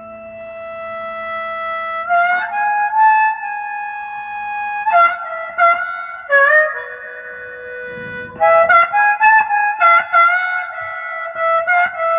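Instrumental melody without singing: a single melody instrument plays held notes, sliding briefly into each new note, with a pause in the middle before the line resumes.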